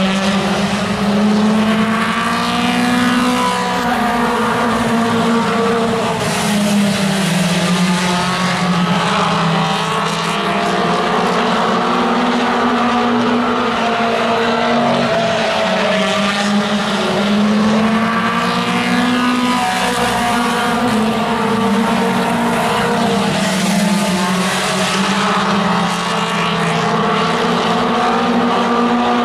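Mini stock race cars' four-cylinder engines running hard around the oval. Their pitch rises and falls every few seconds as they lap.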